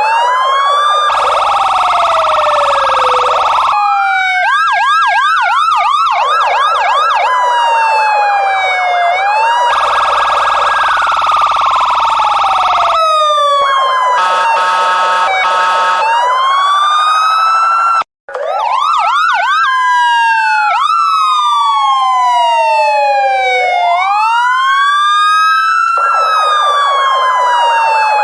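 Loud electronic police siren, alternating between a slow rising-and-falling wail and stretches of quick repeated yelp sweeps, with some steady held tones in between. It cuts out for an instant about eighteen seconds in, then starts again.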